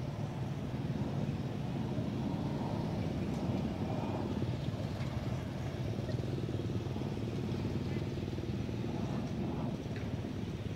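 A motor vehicle engine running steadily, a continuous low rumble that holds the same pitch throughout, with a few faint ticks over it.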